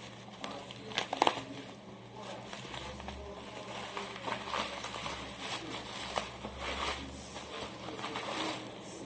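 Packing paper crinkling and rustling as it is handled and pulled away from a new headlight, with scattered small clicks and knocks.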